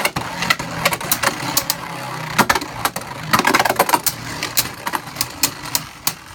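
Blast Jinnius and Vise Leopard Beyblade Burst spinning tops whirring in a plastic stadium, with repeated irregular sharp clacks as they strike each other.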